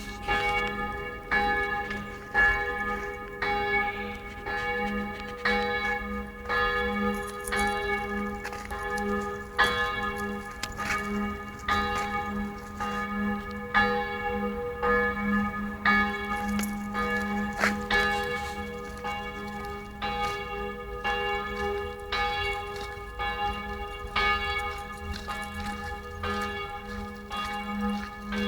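Several church bells of Tempelhof Village Church ringing together. The strokes overlap in an uneven pattern, roughly once a second, over a lasting low hum from the bells.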